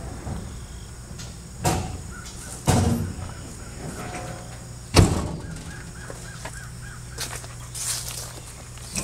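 Handling knocks and rustles of the camera, three of them standing out, the loudest about five seconds in, over a steady low hum.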